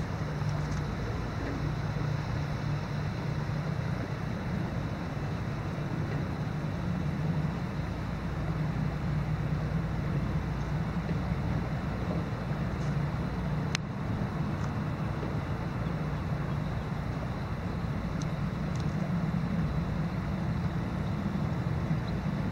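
Steady rush of shallow river water flowing over a gravel bed, with a low rumble and one sharp click partway through.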